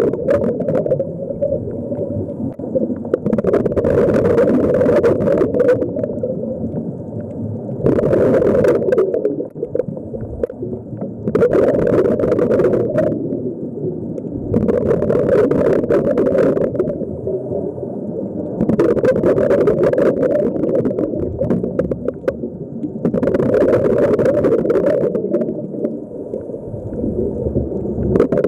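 Muffled underwater sound through a camera housing, with a rush of breathing and bubbles swelling about every four seconds, the rhythm of a diver breathing.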